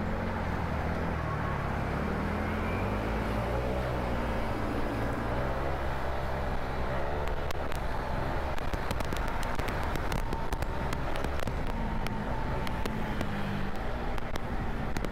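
KRV 180 TCS scooter's engine running while riding, its pitch rising and falling with the throttle, over steady road and wind noise. From about halfway through, a run of sharp crackles sits on top of it.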